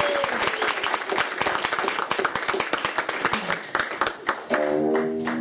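Audience clapping, thinning out toward the end, then an electric guitar chord rings out about four and a half seconds in.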